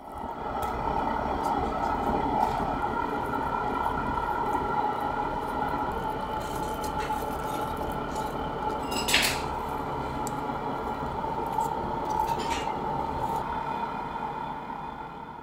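Steady mechanical hum of kitchen machinery, like a ventilation fan, with a few sharp clinks of dishes or utensils, the loudest about nine seconds in.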